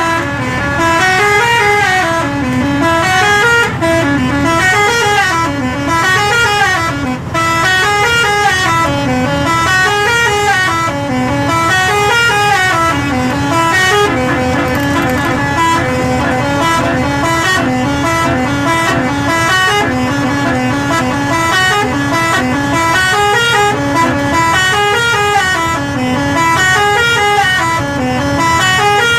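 Jodhpur-style musical truck horn playing a repeating electronic tune of stepped notes that climb and fall every couple of seconds, without a break, over a steady low hum.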